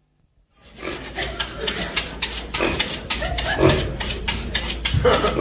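Rapid, rhythmic scraping strokes, about four or five a second, starting after a brief silence.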